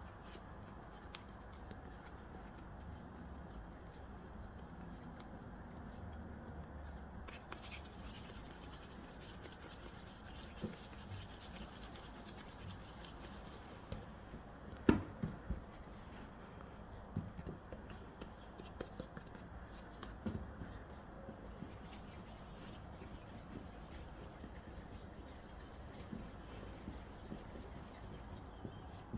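Hands working soft bread dough on a work surface: quiet rubbing and handling noises with scattered light taps, and one sharper knock about fifteen seconds in.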